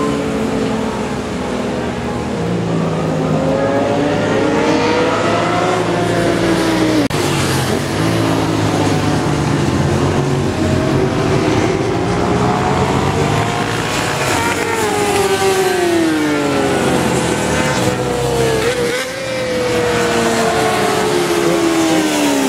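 Several racing motorcycle engines running hard at high revs on a circuit straight, their pitch overlapping, climbing as the bikes accelerate and dropping as they go by.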